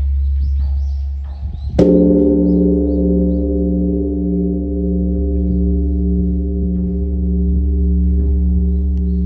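Large bronze Korean Buddhist temple bell struck once just under two seconds in with a wooden log striker: a dull strike, then a long ringing hum that pulses slowly, over the deep hum still sounding from the previous stroke.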